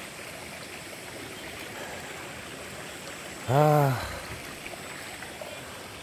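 Shallow stream running steadily over a bed of pebbles and rocks.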